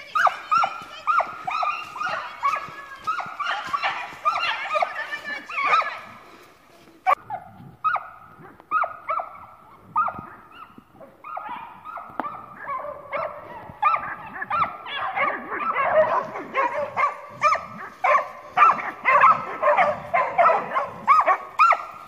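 Several dogs barking and yelping in rapid strings of short, high-pitched barks, thinning out about seven seconds in and building again to a dense, overlapping chorus from about fourteen seconds on.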